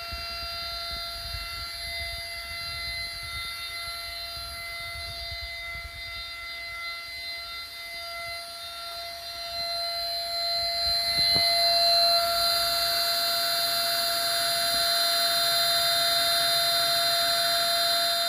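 CNC mill spindle whining steadily with several held tones while a fine engraving bit mills a copper-clad PCB. About two-thirds in there is a sharp click, and the sound becomes louder with added hiss.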